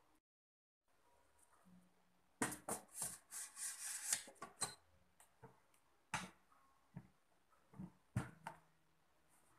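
Inner pot of a Pensonic electric rice cooker being set down into the cooker body, a quick cluster of scrapes and knocks, then a few separate clicks and knocks as the plastic lid is closed.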